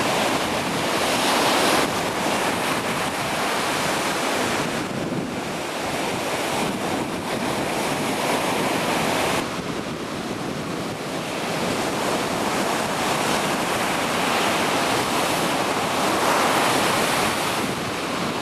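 Ocean surf washing in, swelling and easing every few seconds, with wind buffeting the microphone.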